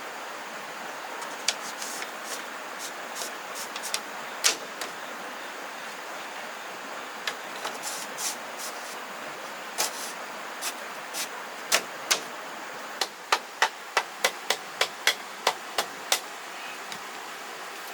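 Hand-tool strikes on bamboo: scattered sharp knocks, then a quick even run of about a dozen strikes, roughly three a second, near the end.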